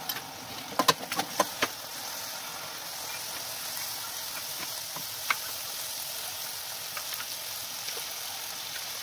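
Garlic cloves sizzling steadily in oil in an aluminium pot, with a quick run of sharp clicks from a utensil tapping against the pot about a second in and one more click near the middle.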